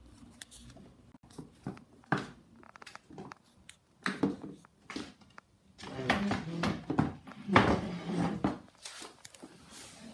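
A kitten's paws and claws scrabbling and tapping on a cardboard shoe box and its loose lid: irregular light knocks and scratches, with a louder flurry of scrabbling past the middle.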